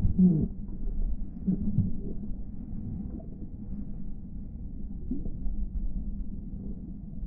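Muffled underwater sound of swimming-pool water heard through a submerged camera: a steady low rumble of moving water with a few soft knocks and swells in the first two seconds.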